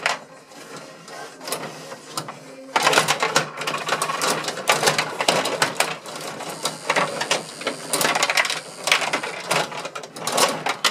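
Gretzky rod hockey table in fast play: steel rods sliding and twisting in their holes, and the plastic players clacking against the puck and the boards in a rapid rattling clatter. It is sparse for the first couple of seconds, then turns busy and louder.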